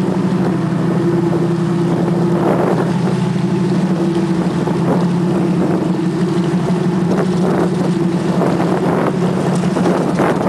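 Boat engine running steadily with a low, even hum; its tone shifts slightly about four seconds in.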